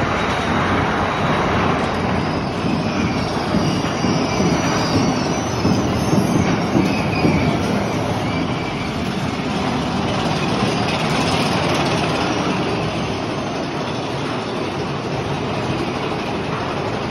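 Big Thunder Mountain Railroad roller coaster's mine train running along its steel track: a steady rumble and clatter of wheels on rail, with faint squealing a few seconds in.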